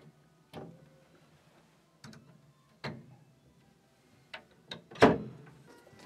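Wooden knocks and clunks from an upright piano's lid and case panels being fitted back and closed: about six separate knocks, each with a short ring, the loudest about five seconds in.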